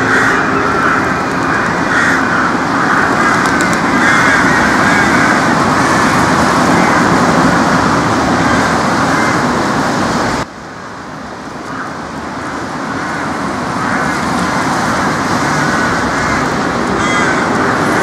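Crows cawing repeatedly over a loud, steady rushing background noise. The background drops suddenly about ten seconds in and slowly builds up again.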